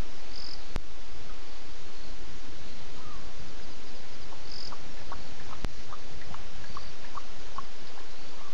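Night chorus at an African waterhole: scattered short chirping calls of frogs and insects over a steady hiss, with two sharp clicks.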